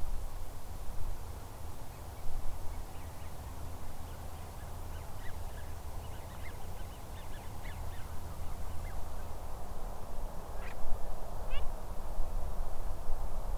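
Distant flock of waterfowl calling: many short, high calls scattered through, thickening after a few seconds, over a low steady rumble.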